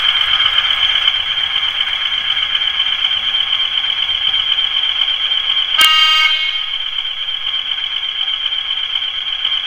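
Sound decoder in a Bachmann Class 20 model locomotive playing a recorded Class 20 diesel engine, ticking over steadily through its small speaker. A short horn toot sounds about six seconds in.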